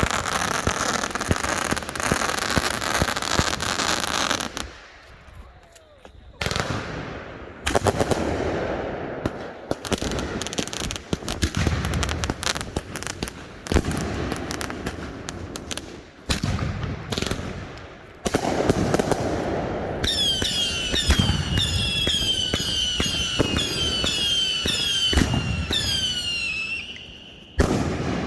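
Consumer firework cakes firing in rapid volleys of bangs and crackling, with a short lull about five seconds in. In the last third a cake fires a long string of whistles, each a falling whistling tone, about two a second, before it cuts off near the end.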